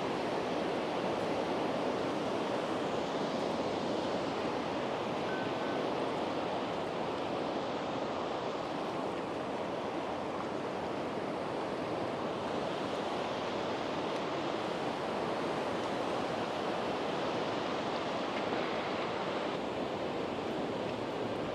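Sea surf washing onto the beach: a steady, unbroken rush of waves.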